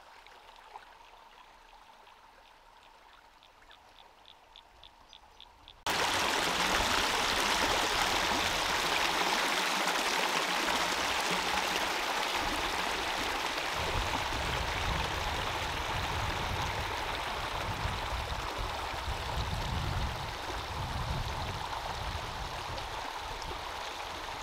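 A faint background with a run of quick high ticks, then about six seconds in, a sudden switch to loud, steady rushing of creek water, which cuts off abruptly at the end.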